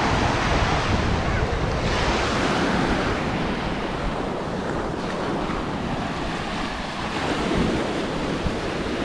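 Sea waves washing onto the beach, with gusting wind buffeting the microphone.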